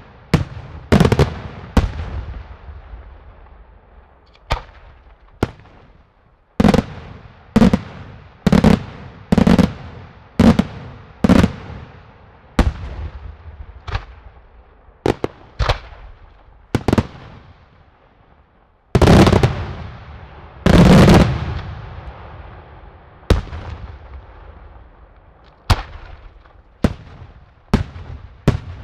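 Daytime fireworks display: aerial shells bursting overhead in a series of sharp, echoing bangs, roughly one a second with brief lulls. About two-thirds of the way through, a dense volley of loud bangs runs for a few seconds.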